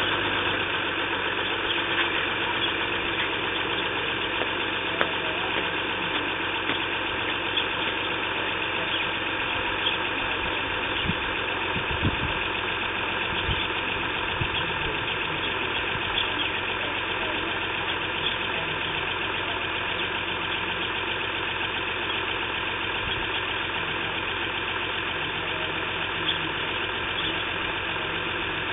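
Audi sedan's engine idling steadily at an even pitch, with faint irregular ticks over it.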